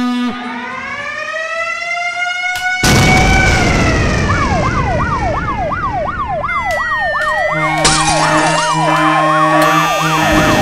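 Loud cacophony of layered electronic sound effects played through speakers. A pitched tone rises and then falls, a burst of hiss comes in about three seconds in, and a fast siren-like wail sweeps up and down about twice a second from about four seconds in. A pulsing buzzer tone joins near the end.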